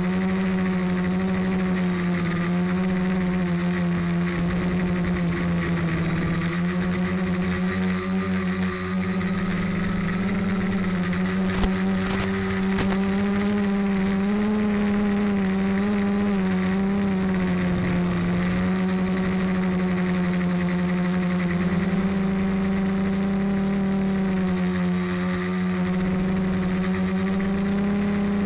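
Multirotor's electric motors and propellers droning steadily, the pitch drifting up and down a little with throttle, with two brief clicks about halfway through.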